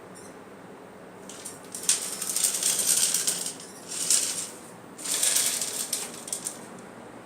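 Small animal scrabbling and scratching inside an unused metal chimney pipe, a rapid rattling clatter in three bursts, the first and longest about a second in.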